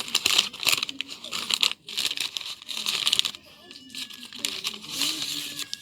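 Gift wrapping or packaging being handled, crinkling and tearing in quick, irregular rustles.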